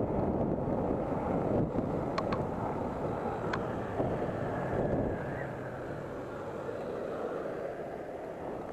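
Wind rushing over an action camera's microphone on a moving electric scooter, with a few sharp clicks. The rush eases off after about five seconds as the scooter slows.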